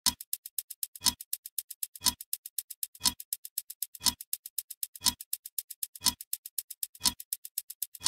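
Countdown clock ticking sound effect: a strong tick with a low thump once a second, keeping time with the falling seconds, and rapid faint ticks, about ten a second, in between.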